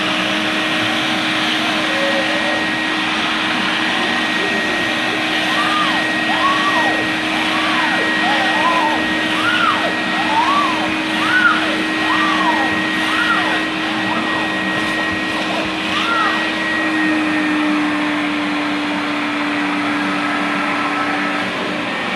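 EFA water-filter vacuum cleaner running steadily with an even motor whine. Its pitch drops slightly about seventeen seconds in and comes back up just before the end.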